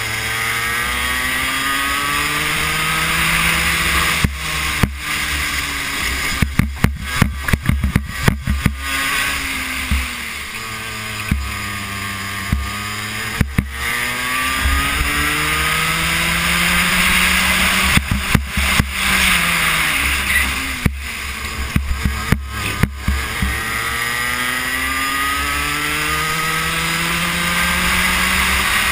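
A racing kart's two-stroke engine pulling hard: its pitch climbs steadily along each straight and drops abruptly under braking for the corners, several times over. Wind rushes across the microphone, and clusters of sharp knocks and rattles come at the braking points.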